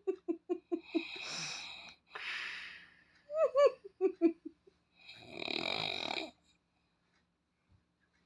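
Snoring: two rasping snores and a breathy rush, with rapid stuttering wheezes that fall in pitch between them. It stops for the last two seconds.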